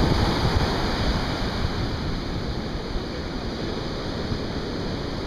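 Surf breaking and washing up a beach, with wind buffeting the microphone; the rumble is heaviest early on and eases slightly after a few seconds.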